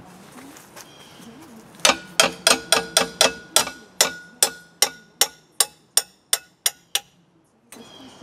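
Hand hammer striking a scrap metal plate clamped in a bench vise, bending it over: a run of about twenty sharp, ringing blows starting about two seconds in, quick at first, then slower and softer until they stop near the end.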